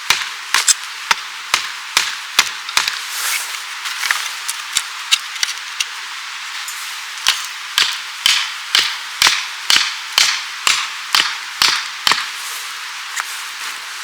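Repeated sharp strikes of a hand tool, about two a second, in two runs with a short pause between them about halfway through, over a steady high hiss.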